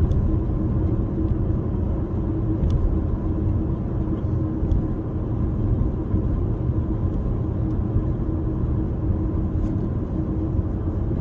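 Steady low rumble of road and engine noise inside a moving car's cabin while driving.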